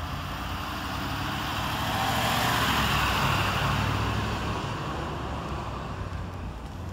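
A road vehicle driving past, its noise swelling to a peak about three seconds in and then fading away, over a steady low rumble.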